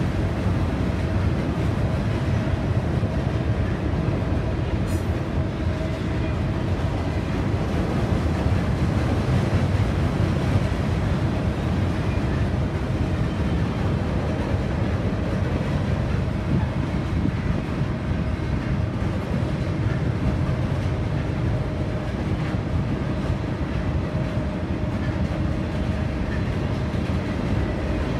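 Norfolk Southern freight train's open-top hopper cars rolling across a steel girder bridge: a steady rumble and clatter of wheels on rail that holds at an even level.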